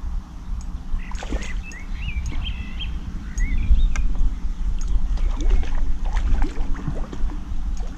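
Low wind rumble on the microphone, with a small bird's wavering, warbling song between about one and a half and three and a half seconds in, and scattered light clicks.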